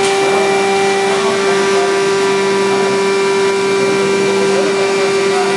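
A motor-driven machine running steadily: a constant hum with a strong, unwavering whine and a hiss, with no change in speed.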